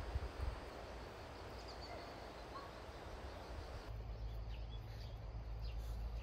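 Faint outdoor ambience: wind rumbling on the microphone with a few faint bird chirps. After a cut about four seconds in, a small dog's light footsteps on wood chips.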